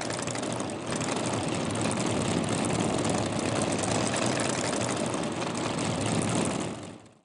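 An engine running at a steady speed. The dense, even sound fades in, holds, and fades away about seven seconds in.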